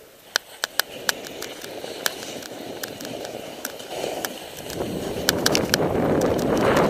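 Snowboard sliding and scraping down crusty snow, a rough hiss that builds and is loudest near the end, with many sharp clicks and ticks throughout.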